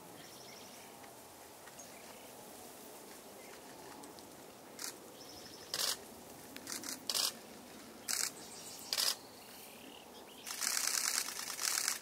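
Camera shutter clicking: a handful of single shots spaced about a second apart, then a rapid burst of continuous shooting lasting about a second and a half near the end.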